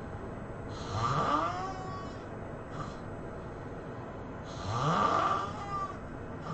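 A person snoring: two long snores about four seconds apart, each a raspy breath with a tone that rises in pitch.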